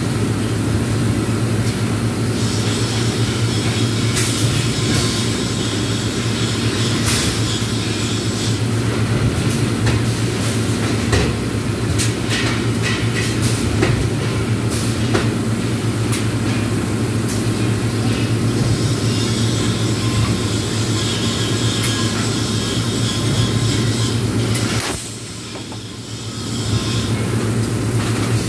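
Steady electrical hum and machine rumble of welding-shop equipment, with scattered clicks and ticks. A higher hiss comes in twice for several seconds, and near the end the noise drops briefly before picking up again.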